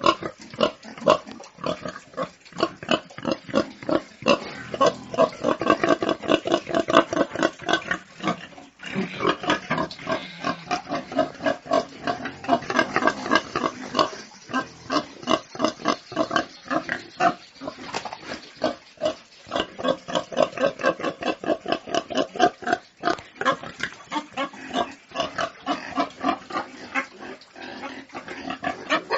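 A group of domestic pigs grunting in quick, short, overlapping grunts, several a second, without a break.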